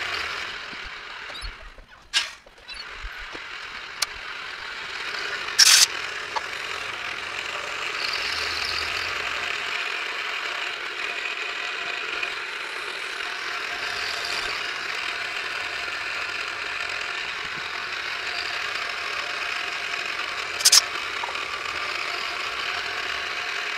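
Milling machine running a 3/16-inch end mill at about 1120 RPM, cutting a radius while a stepper motor turns the rotary table under it: a steady machine noise, with a few sharp clicks, the loudest about six seconds in and another near the end.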